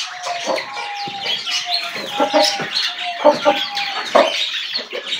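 Chickens clucking, a string of short calls repeated through the whole stretch, with small cage birds chirping high in the background.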